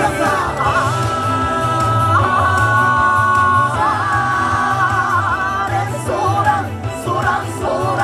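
YOSAKOI dance music with a singer: the voice holds two long, wavering notes in the middle, then breaks into shorter phrases near the end, over a steady low beat.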